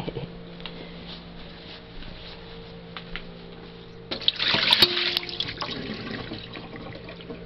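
Water tipped out of a stainless steel dog water bowl splashing into a stainless steel kitchen sink, a loud splash about four seconds in that lasts a second or so and tails off. A few faint clicks before it.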